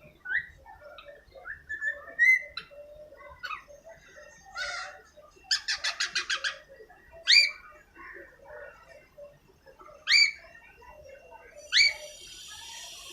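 Baby cockatiel chirping and whistling: short rising chirps, a quick run of about eight chirps in the middle, then three loud upward-sweeping whistles, the sounds it copies from outside noises. A steady hiss starts near the end.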